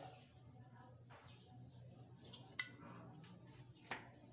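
Near silence with faint, short, high bird chirps about a second in, and two brief clicks in the second half.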